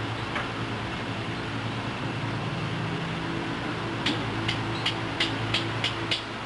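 Metal barbecue tongs clicking at a gas grill while food is turned: about seven quick clicks, three or four a second, starting about four seconds in. They sit over a steady low hum.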